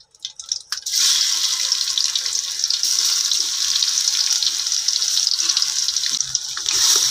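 Garlic paste hitting hot mustard oil in a pot and sizzling: a steady, loud hiss that starts suddenly about a second in.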